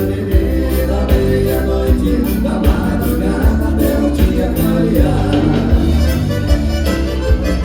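Live gaúcho dance band playing an instrumental passage led by accordion, over bass and a steady drum beat.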